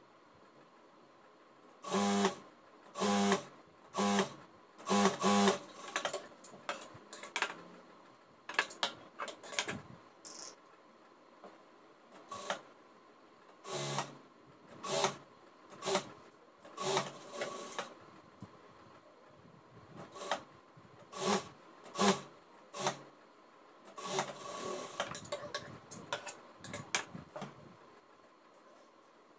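Jack industrial sewing machine running in a series of short stitching runs, each under a second, with a longer run near the end and quiet pauses between.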